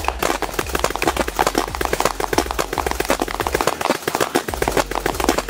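Many quick popping shots from several pump-action paintball markers firing at once, mixed with the smack of paintballs hitting their target.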